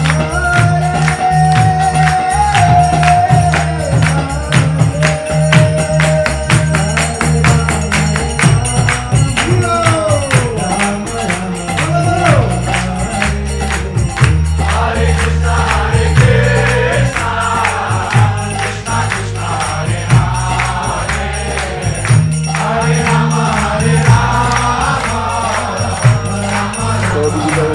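Devotional music: a group of voices singing a chant over a steady, fast beat of jingling percussion with deep bass.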